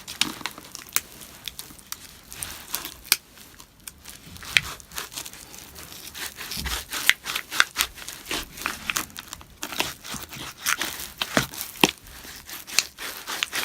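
Irregular crackling, ticking and tearing as battery adhesive gives way while a duct-tape-wrapped flat-head screwdriver slowly pries a glued-in laptop battery cell off a MacBook Pro's aluminium case.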